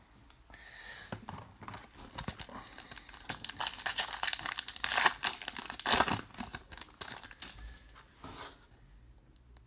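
A foil trading card pack being torn open, its wrapper crinkling and crackling for several seconds, loudest about halfway through and dying down near the end.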